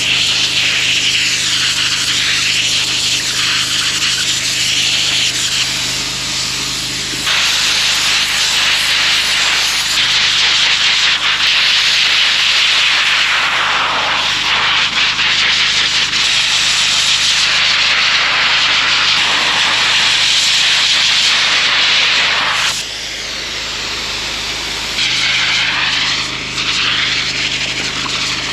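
Combine harvester running while cutting corn: a steady engine drone under a loud rushing hiss. The sound grows louder about seven seconds in, drops for a couple of seconds near the end, then comes back up.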